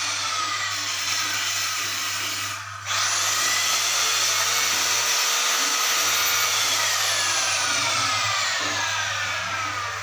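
High-speed electric power tool motor running. It starts, dips briefly about three seconds in and spins back up to a higher pitch, then its pitch sinks slowly over the last few seconds.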